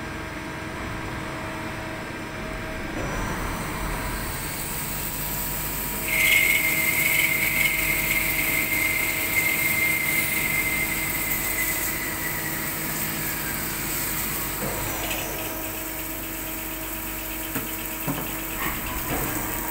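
Spinner TC77-SMCY CNC lathe running with a steady machine hum. About six seconds in, the cutting tool goes into the spinning workpiece with a loud high squeal that sinks slightly in pitch and fades out after about six seconds.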